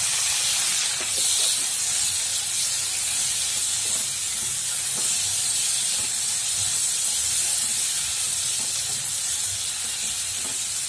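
Freshly added chopped tomatoes sizzling in hot oil with onions and cashews in a nonstick pan, a steady hiss as their juice meets the oil, with a wooden spatula stirring and scraping now and then.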